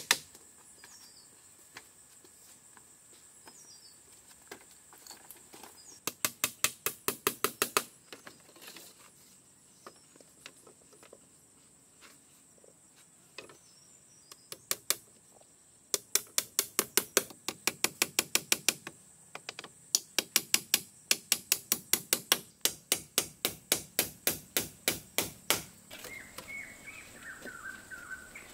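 Rapid hammering: runs of quick sharp strikes, about six or seven a second, lasting two to five seconds each with quiet pauses between. Birds chirp near the end.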